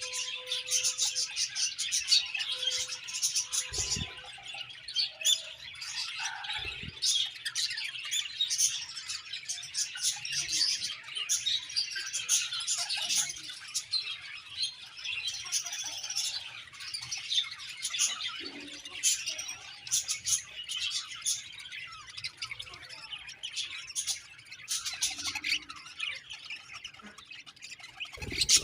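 A colony of budgerigars chirping and chattering together, a dense, unbroken mix of many quick high chirps and squawks.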